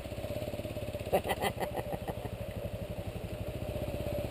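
Kawasaki KLR650's single-cylinder engine idling with a steady, fast low pulse, and a few sharp clicks and knocks about a second in.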